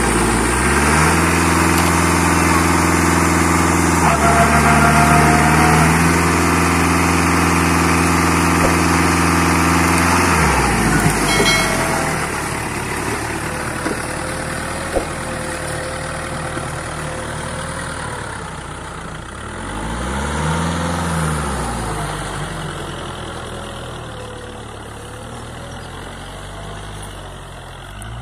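Tractor diesel engine held at high revs for about ten seconds, then throttled back to a low run. It is revved up and down once near the two-thirds mark.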